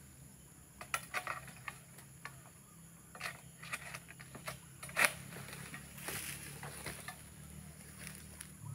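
Oil palm pruning pole (egrek, a sickle on a long pole) working at frond bases high in the crown: scattered sharp clicks and scraping rustles, the loudest about five seconds in.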